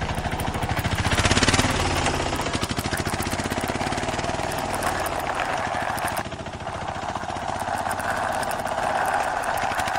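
A plastic toy auto rickshaw being run by hand, with a steady, rapid engine-like rattle that is loudest about a second in.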